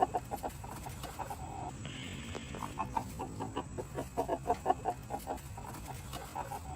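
Cockerel giving runs of rapid, repeated clucking calls with a short drawn-out note about a second and a half in: agitated, frustrated rooster sounds.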